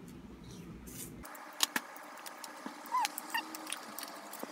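Quiet eating sounds of someone chewing a frozen creamy dessert: a couple of sharp clicks, then a few short squeaky lip smacks.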